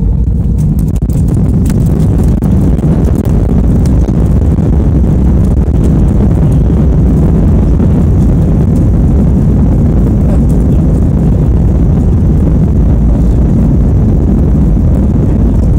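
Cabin noise of an Airbus A320 airliner rolling on the runway, heard from a seat over the wing: a loud, steady low rumble of the jet engines and wheels that swells during the first second and then holds even.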